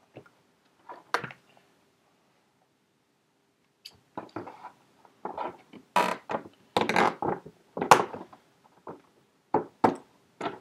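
Handling a package to get it open: a few sharp clicks, then after a short quiet gap an irregular run of knocks, taps and rustles.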